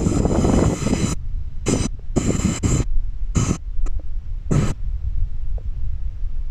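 Wind buffeting the microphone: a steady low rumble broken by several short, irregular gusts of rushing noise.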